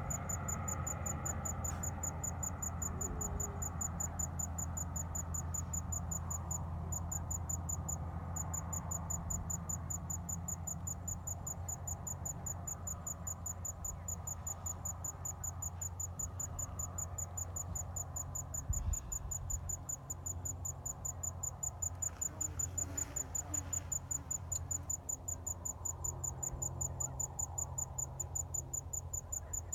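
Crickets trilling: a fast, even, high-pitched pulsing that breaks off briefly about seven seconds in, over a steady low rumble.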